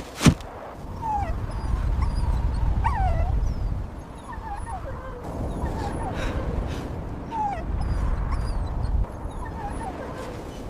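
Dog whimpering: short, high whines that fall in pitch, repeated about eight times, over a steady low rumble. A sharp knock sounds right at the start.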